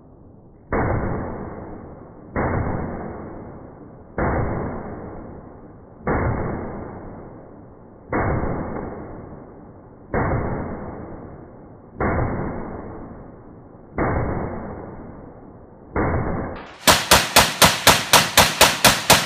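Smith & Wesson M&P15 AR-15-style rifle shots played in slow motion: nine deep, dull booms about two seconds apart, each starting suddenly and fading away slowly. About seventeen seconds in, a rapid string of about a dozen sharp gunshots at normal speed, roughly five a second, follows.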